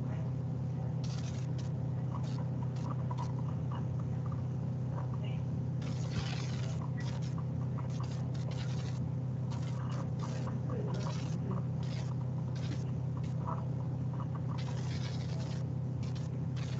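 Room tone from an open microphone: a steady low hum with short bursts of noise coming and going every second or few, a longer one about six seconds in and another near the end.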